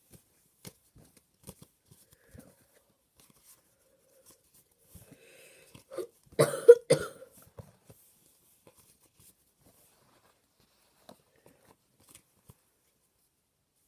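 A person coughs in a short fit of three or four quick coughs about six seconds in. Around them come faint clicks and light rustles of trading cards being handled.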